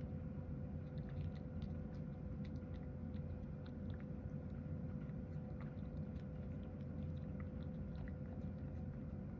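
Cat chewing and eating from a bowl: many small, quick clicks of its mouth and teeth. A steady low hum with a faint steady tone runs underneath.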